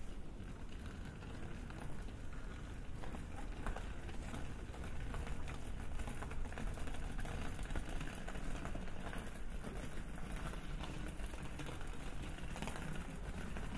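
Footsteps and faint scuffs on a paved street, irregular light ticks over a steady low rumble of street ambience.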